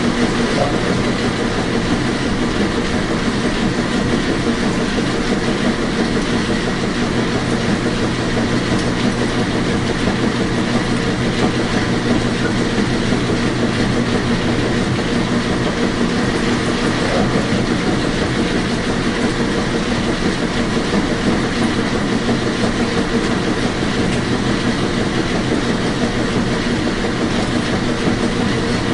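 Washing machine running: a steady, unchanging machine noise with a faint hum.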